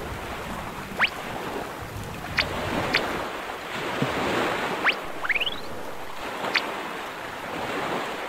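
Storm-at-sea ambience for an animation: a steady wash of waves and wind, with about six short whistles, each rising quickly in pitch, scattered through it.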